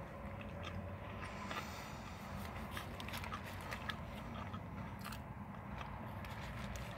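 A person chewing a mouthful of banh mi sandwich with the mouth closed: a run of small, irregular crunches and clicks over a steady low hum.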